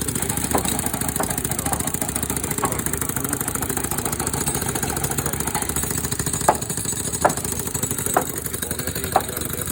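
A small engine running steadily, with a series of sharp knocks or clanks cutting through it, several of them in the second half.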